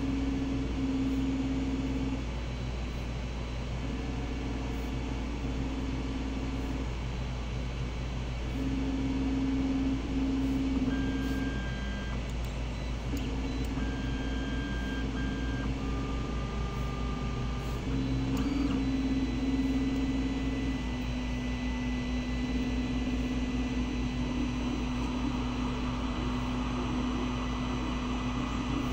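Creality Ender-3 Pro 3D printer humming steadily from its fans, with on-and-off humming tones from its stepper motors. Past the middle the tones settle into one continuous tone with a rising hiss as the printer starts printing its first layer.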